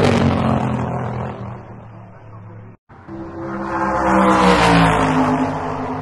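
Bus engine passing by twice: each pass swells to loud and fades away, with a short break between them. On the second pass the pitch drops a little as it goes by.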